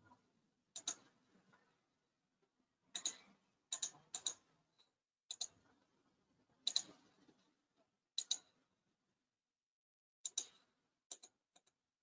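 Computer mouse buttons clicking, about ten short, sharp clicks at uneven intervals, some in quick pairs, as on-screen connections are made in software.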